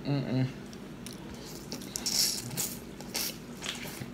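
Boiled crawfish being cracked and peeled by hand and sucked at the mouth: a string of sharp shell cracks and clicks, with a wet sucking slurp about two seconds in.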